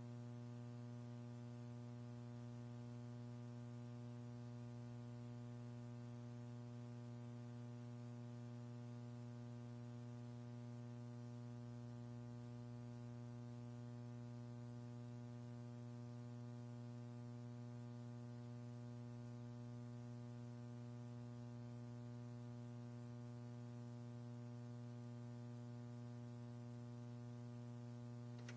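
Steady electrical mains hum, a low drone with a stack of overtones, unchanging throughout, over faint hiss; no other sound.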